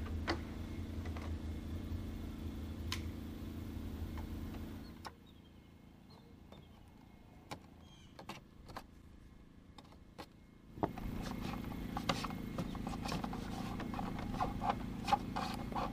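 Snips clicking as they cut through the refrigerator vent's wire-mesh screen, a few sharp snaps in the quieter middle and more near the end. Under the cutting, a steady low hum drops away about five seconds in and comes back about eleven seconds in.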